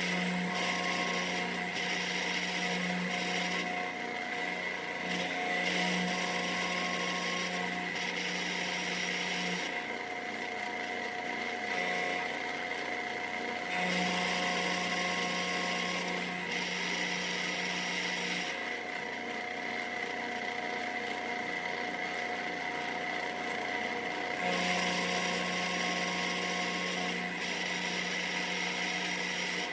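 A machine spindle whines steadily at high speed while milling, with a cutting noise that rises and falls in stretches. Under it, a low hum stops and restarts several times.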